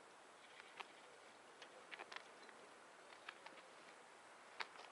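Near silence: a faint steady hiss with a few scattered light clicks and taps at irregular intervals.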